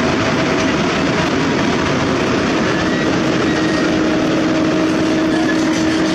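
Heavy diesel machinery running with a loud, steady rumble and rattle, with a faint steady whine underneath.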